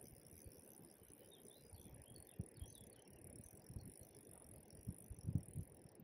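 A steady high-pitched insect drone, with a few faint short chirps, over scattered low thumps, the strongest about five seconds in.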